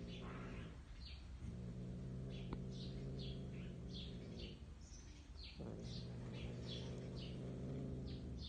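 Cat growling low and long: two drawn-out growls of about three seconds each with a short break between. This is a mother cat guarding her food from her kitten. Small birds chirp repeatedly in the background.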